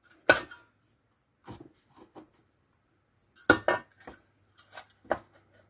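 Sharp metallic clinks and knocks as a magnetic marking tool is set and held against a sheet-steel car chassis repair section clamped in a bench vice. Two loud clinks, one just after the start and one about three and a half seconds in, with lighter taps between.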